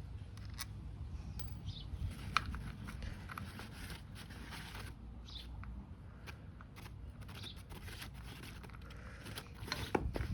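Light metallic clicks and scrapes of hand work on a motorcycle's oil filter cover bolts being spun off by hand, with a quicker cluster of clicks near the end.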